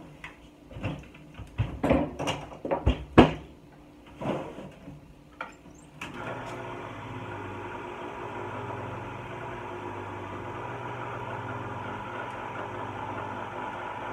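A run of knocks and clatters from kitchen handling, then about six seconds in a small electric kitchen appliance switches on and runs with a steady hum.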